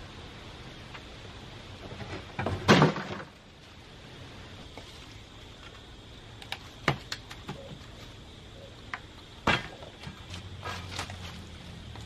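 A tall wooden box of weathered boards toppling over and landing with a loud crash about three seconds in. Later come a scatter of short, sharp knocks as a long-handled tool strikes the wooden pallet fence and the ground at its base.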